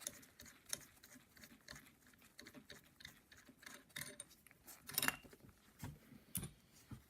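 Faint, scattered clicks and taps of small metal engine parts being handled, a connecting rod and its bolts. The loudest click comes about five seconds in.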